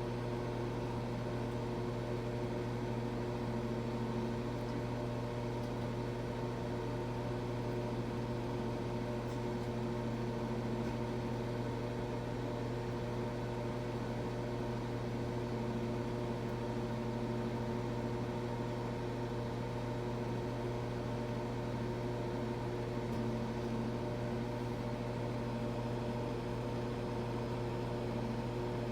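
Microwave oven running with a steady, even hum while it heats a plate of food.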